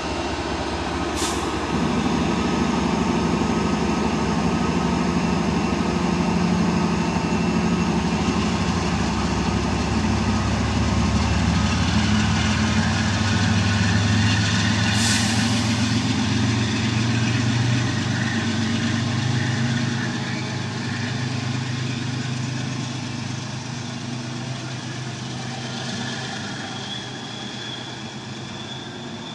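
MBTA HSP46 diesel locomotive's GE GEVO-12 engine throttling up as the train departs: a loud low drone that climbs in pitch, then fades as the train pulls away. Two brief sharp air hisses come about a second in and again around fifteen seconds in.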